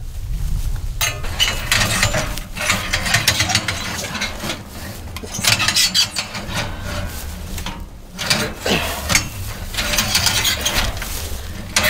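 Hand-cranked Walters Fencing wire winder turned hard, its reel and gearing clattering as rusty barbed wire is dragged in and wound onto the spool. It goes in uneven stretches with short breaks where the crank is reset. The pull is heavy going against the drag of the long run of wire through grass.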